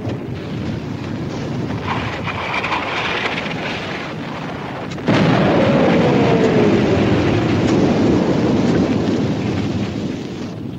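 Artillery shells bursting: continuous blast noise, with a sudden louder explosion about five seconds in and a falling whistle sounding over it for a few seconds.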